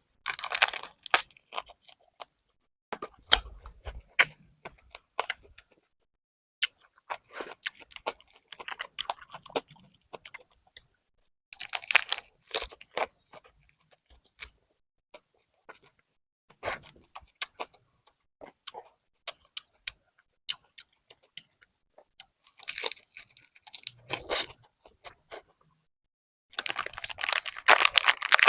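Close-miked eating: chewing and crunching on a rice-paper roll of steamed scad with fresh lettuce, herbs and cucumber. The bouts of chewing come and go, with a denser, louder spell of crunching near the end.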